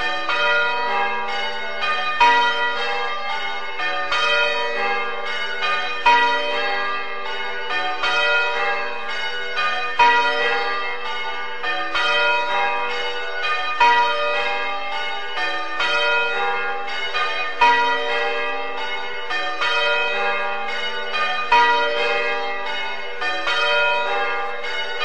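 Church bells ringing: a continuous, even run of strikes in a repeating sequence, with a louder stroke about every four seconds.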